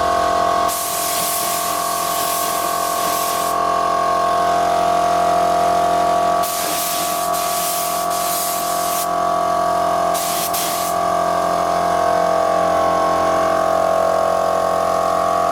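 Spray gun hissing in three bursts, the first about three seconds long, the second about two and a half, the last about a second, as paint is laid on a test panel. A steady motor hum runs under it throughout.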